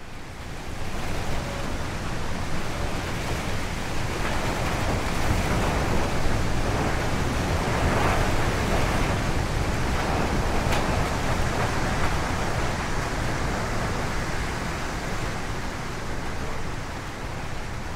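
Wind sound effect: a steady rushing noise that swells in over the first couple of seconds, is fullest in the middle and eases slightly near the end.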